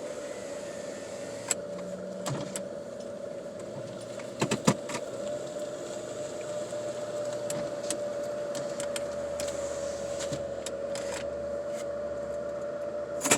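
Steady hum of a parked car running, heard from inside the cabin, with a few scattered clicks and taps.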